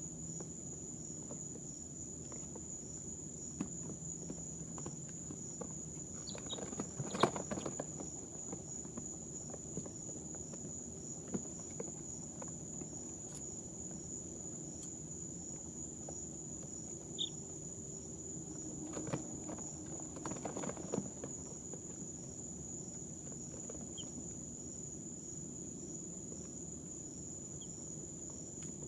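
Baby chicks shifting and scratching on brooder bedding in two brief bouts, with a few single short peeps, over a steady high-pitched whine.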